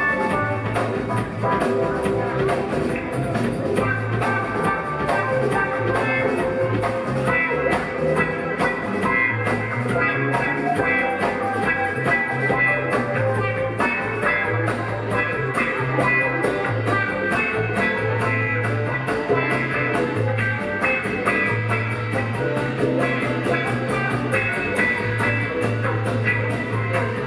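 Live rock band playing an instrumental jam: electric lead guitar, bass guitar, keyboards and drum kit, with a steady pulsing bass line under busy drums.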